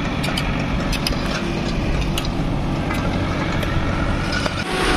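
Diesel engine of a backhoe loader running steadily with a low rumble, with scattered light clicks over it.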